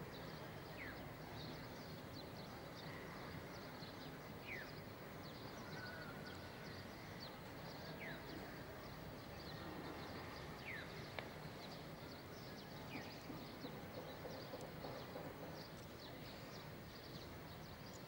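Faint background ambience with a few short, falling chirps spaced a few seconds apart.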